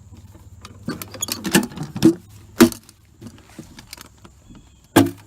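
Small metal ammo cans being handled inside a plastic storage tote: a series of sharp clanks and knocks with handling rustle between, the loudest about two and a half seconds in and near the end.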